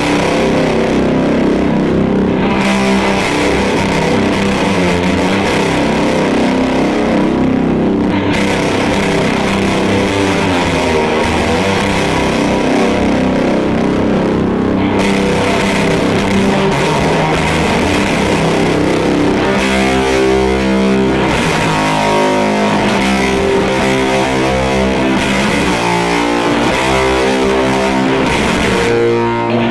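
SG electric guitar played loud through an EarthQuaker Devices Fuzz Master General fuzz pedal on its first setting, into a Fender Deluxe Reverb amp: a heavy, saturated fuzz tone. From about twenty seconds in, the chords ring out more distinctly.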